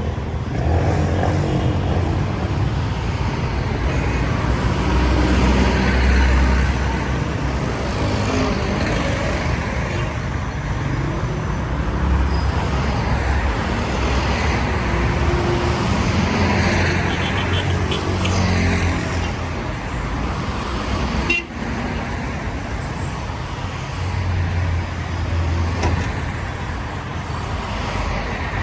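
Busy street traffic: cars and other motor vehicles pass steadily, their engines and tyres rising and falling as each one goes by. A few short car-horn toots sound through it.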